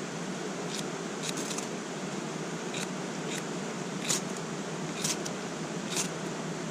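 Steady rush of a mountain stream, with a few short, sharp clicks at irregular intervals over it.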